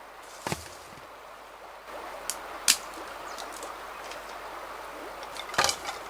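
Knife blade chopping at a branch in a few sharp strikes: one about half a second in, two close together near the middle, the second the loudest, and a quick cluster near the end.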